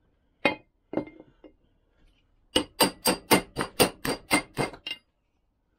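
Hammer striking a seal driver held in the bore of a heated aluminium Lambretta mag flange, driving an oil seal home: two separate blows, then a quick even run of about a dozen taps, roughly four or five a second.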